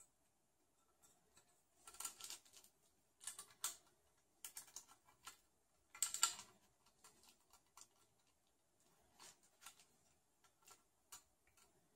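Faint, scattered clicks and short rustles from handling a low-profile graphics card over an open computer case, small metal and plastic parts tapping together, the loudest cluster about six seconds in.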